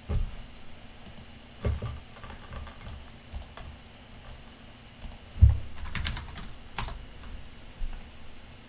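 Computer keyboard being typed on in short irregular bursts of keystrokes, with a few louder thumps among them, the loudest about five and a half seconds in.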